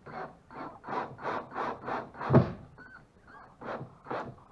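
Steam hissing in short spurts, about three a second, from the steam feed onto an ash strip being steam bent, with one heavier thump-like spurt about halfway through.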